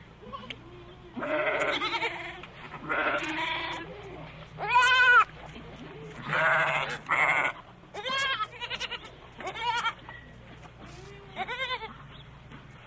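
Goats or sheep bleating: about eight wavering, quavering bleats in turns of differing pitch, the loudest about five seconds in.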